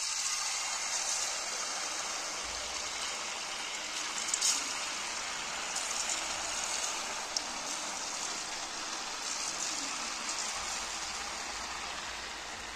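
Jalebi batter deep-frying in hot oil in a kadhai: a steady sizzling hiss that eases slightly toward the end.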